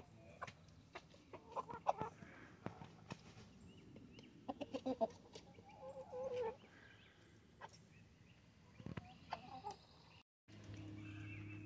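Chickens clucking in short calls, among quick light taps of beaks pecking at feed in plastic trays. About ten seconds in the sound cuts out briefly and gives way to a steady low hum.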